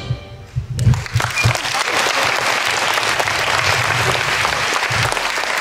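Audience applause, breaking out about a second in as the last notes die away and then going on as steady, dense clapping from many hands.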